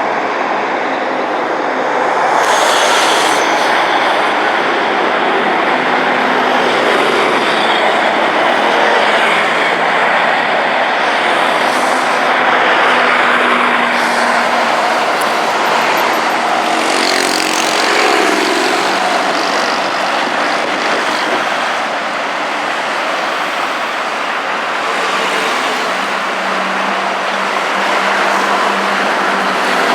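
Heavy city street traffic: cars and trucks moving at low speed in a steady, unbroken wash of engine and tyre noise, with single engines now and then rising and fading as they pass.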